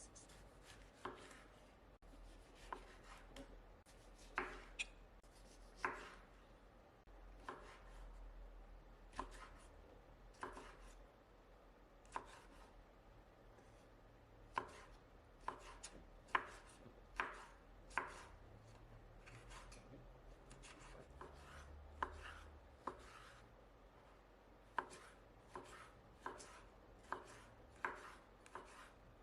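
Knife cutting food on a cutting board: sharp, irregular knocks of the blade on the board, about one a second, sometimes in quicker runs.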